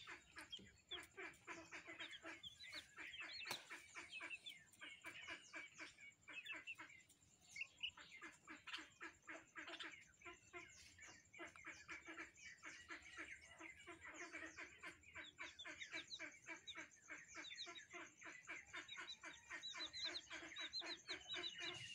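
A flock of chicks cheeping without a break, many short, high peeps overlapping into a dense, rapid chatter, with a few clearer falling chirps near the end.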